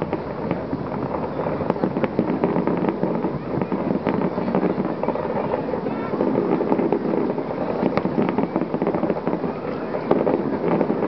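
Fireworks display: aerial shells bursting in a dense, continuous barrage of bangs and crackling, with a couple of sharper bangs about two and eight seconds in.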